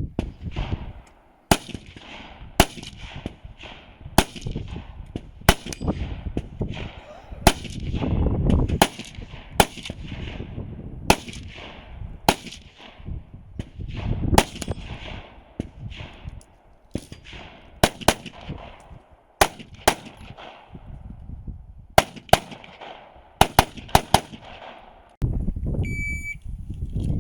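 A string of about two dozen gunshots, fired singly and in quick pairs at uneven intervals, with a low rumble between them. A short electronic beep sounds near the end.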